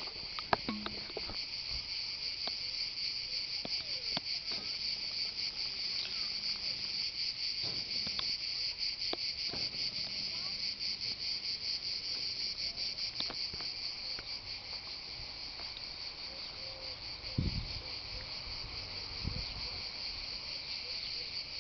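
A chorus of cicadas buzzing steadily in a fast, shimmering pulse, high-pitched and unbroken. A few low thumps and a sharp click stand out near the start and near the end.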